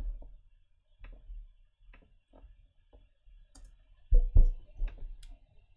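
Typing on a computer keyboard and clicking a mouse: scattered single key and button clicks, with two louder knocks about four seconds in.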